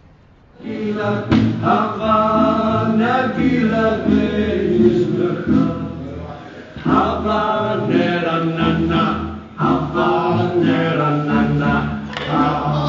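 Band music with singing voices over electric guitars and violin, starting about a second in.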